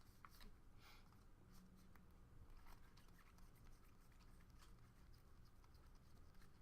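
Near silence: a low room hum with faint rustles and clicks of trading cards being handled and flipped.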